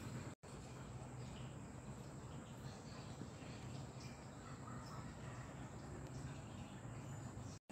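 Hokushin SC-10 16 mm projector switched on and running, a steady low whirring hum from its motor and mechanism. The sound cuts out for a split second twice, shortly after the start and just before the end.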